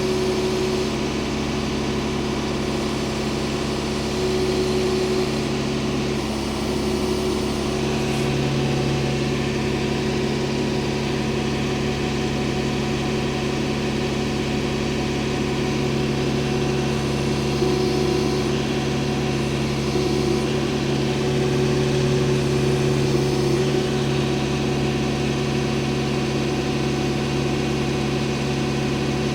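Engine running steadily near idle, with small rises and falls in load while machinery slowly lowers a heavy log onto the sawmill bed.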